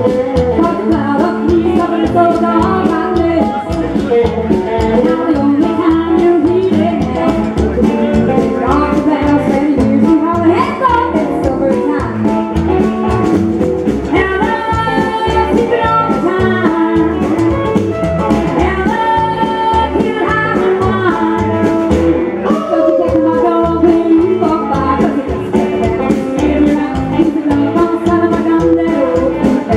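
Live band music: a woman singing over an electric hollow-body guitar, upright double bass and drums, with a steady beat.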